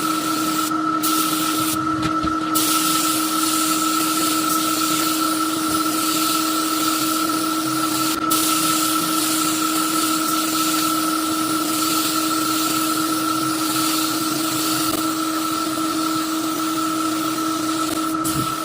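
Spray gun hissing as sanding sealer is sprayed onto wood, the hiss breaking off briefly about a second and two seconds in where the trigger is let go. A steady motor hum runs underneath.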